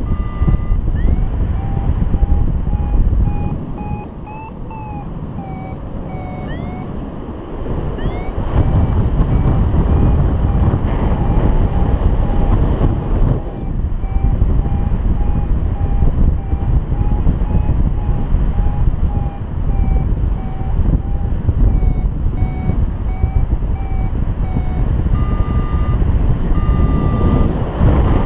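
Paragliding variometer beeping in quick repeated tones whose pitch drifts up and down, the audio climb signal that the glider is rising in lift. The beeps turn higher and longer near the end, over steady wind noise on the microphone.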